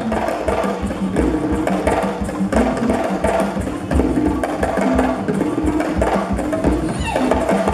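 Music with percussion: a steady beat under a melody of held notes.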